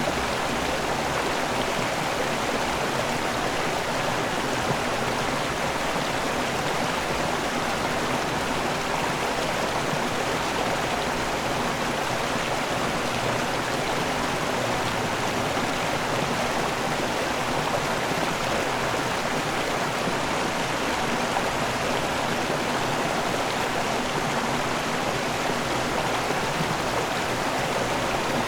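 River waterfall: water rushing and splashing in a steady, even roar of noise.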